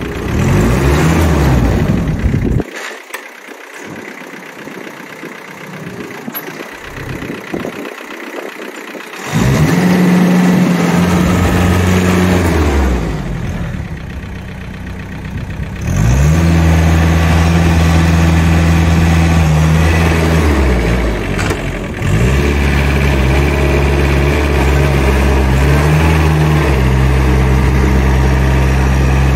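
Farmtrac Atom 30 mini tractor's diesel engine being revved up and held at high speed, then dropping back and rising again several times while the tractor is driven hard. It is much quieter for a few seconds near the start.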